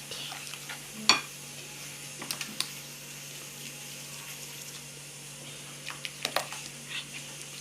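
A utensil stirring slime mixture of glue in a bowl, with scattered light clicks and taps against the bowl, the sharpest about a second in.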